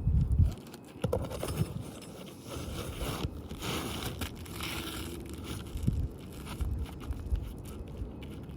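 Irregular scraping and crackling of asphalt roof shingles being handled and worked during a repair attempt, with a brief low rumble at the very start.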